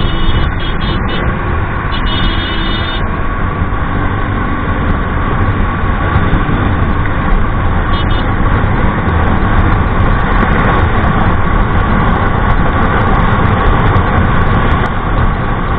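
TVS Ntorq 125 scooter being ridden hard and accelerating, its single-cylinder engine running under a loud rush of wind and road noise that builds as the speed rises.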